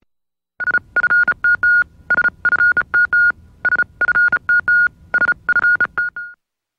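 A single high electronic tone beeping on and off in a quick run of short and longer beeps, like Morse code. It starts about half a second in and stops just before the end.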